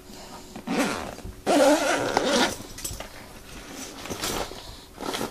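Zippers being pulled open on a nylon medical jump bag, with the fabric rustling as the bag is handled: a few separate swishes, the longest and loudest about a second and a half in.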